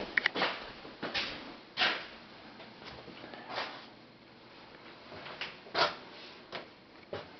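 Footsteps on a hard floor in a small, bare room: irregular soft thumps about every half second to a second, with a couple of sharp clicks at the very start.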